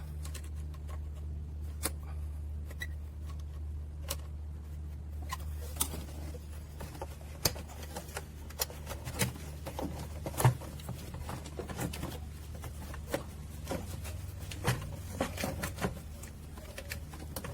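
Scattered clicks and knocks of hands and a tool working the plastic air filter assembly and its clamp loose under the bonnet, busier in the second half, over a steady low hum.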